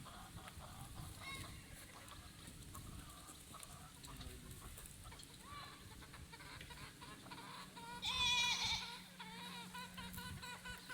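Chickens clucking softly on and off, with a goat bleating once, loud and wavering, about eight seconds in.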